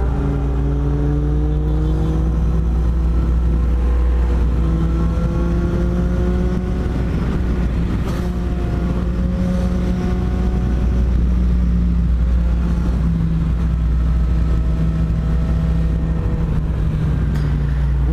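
Four-cylinder motorcycles riding in a group: a steady low engine drone and rumble from the bike carrying the microphone, with the engine notes of the bikes around it climbing slowly in pitch through the revs and dropping back several times.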